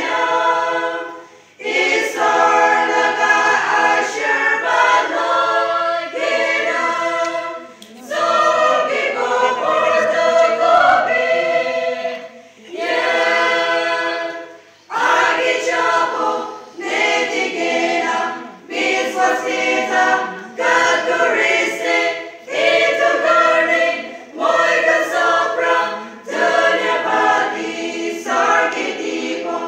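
Women's choir singing a cappella, in sung phrases separated by short pauses for breath.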